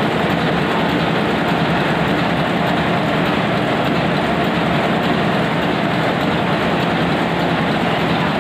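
Hanshin marine diesel engine running steadily at a constant speed, a loud, even mechanical drone.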